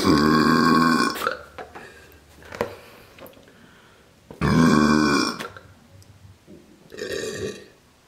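A woman burping into the neck of a balloon to inflate it: two long, loud burps about four seconds apart, each lasting about a second, and a shorter, softer sound near the end.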